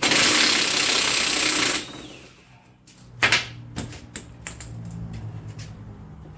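Impact wrench hammering for nearly two seconds as it spins a nut off, then stopping abruptly. A few sharp metallic clicks and knocks follow, over a faint low hum.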